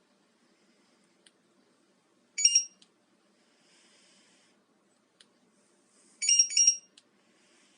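Car alarm key fob's piezo beeper giving two short bursts of quick high-pitched beeps, about four seconds apart, the second burst longer. Faint clicks come shortly before each burst.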